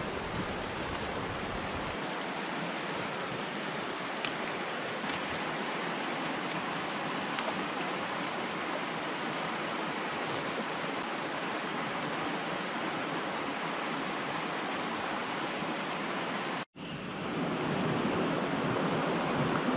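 Steady rushing of flowing stream water. About three-quarters of the way through it breaks off for an instant and then carries on a little louder.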